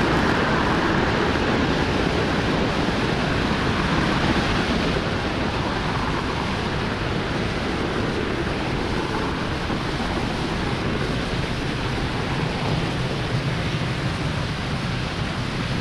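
Falcon 9 first stage's nine Merlin engines during ascent, heard from the ground as a steady rushing noise that fades slowly as the rocket climbs.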